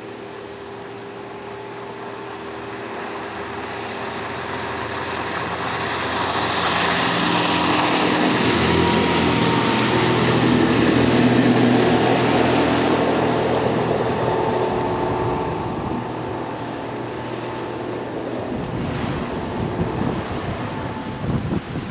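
Outboard motor of a Sibir 460 fiberglass motorboat running at speed, with the rush of the hull and spray on the water; it grows louder as the boat approaches, peaks as it passes about ten seconds in, then fades. Near the end, wind buffets the microphone.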